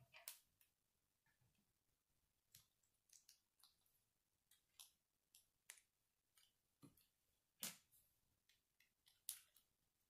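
Faint, irregular clicks of plastic K'nex rods and connectors knocking and snapping against each other as the model is handled and pieces are fitted together, with a few louder snaps among them.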